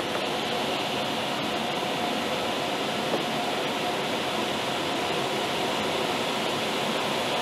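Steady rush of airflow over a glider's cockpit canopy in flight, heard from inside the cockpit.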